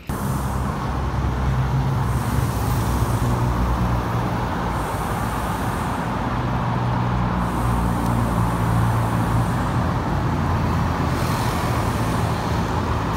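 A vehicle engine runs steadily amid road and traffic noise, with a continuous low hum that rises and falls slightly.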